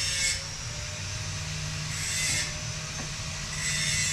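A grinder running in the background, its high abrasive rasp swelling and fading a few times over a steady low hum and a faint motor whine.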